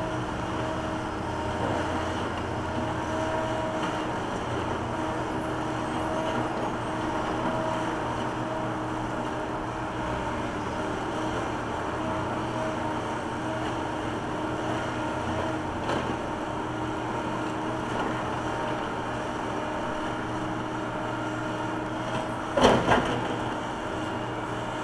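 John Deere backhoe's diesel engine running steadily while it digs and lifts a bucket of soil, with a sharp metallic clank near the end.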